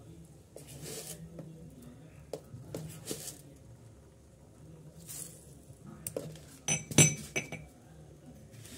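Metal kitchen utensils clinking: a few soft scrapes, then a quick run of metallic clinks in the last third, one much louder and ringing briefly.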